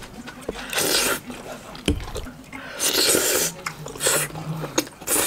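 A person slurping strings of melted cheese and penne off a fork: a few short, airy slurps about a second apart. There is one sharp knock about two seconds in.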